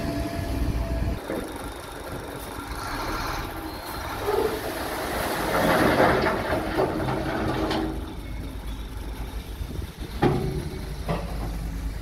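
Shacman dump truck tipping its load of rock and soil, the load sliding out of the raised bed with a rushing rattle that swells and peaks about halfway through, over the steady low running of its diesel engine. A few sharp knocks follow near the end.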